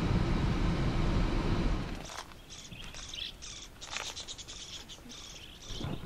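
A vehicle driving, heard as a steady low rumble for about two seconds, which then cuts off. After that, wild budgerigars chirp and chatter in many quick, high calls.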